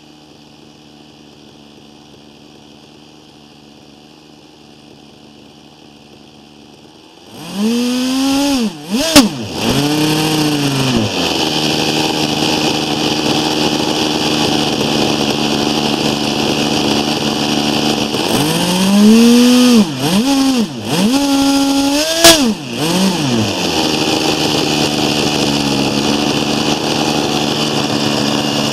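Webra 61 glow engine with a tuned pipe, driving a RamTec ducted fan with a cut-down RK40 rotor on a test stand. It runs faintly at idle, then about seven seconds in is opened up to a high-pitched full-throttle scream. The throttle is chopped and reopened twice, the pitch dropping and climbing back, each time with a sharp crack.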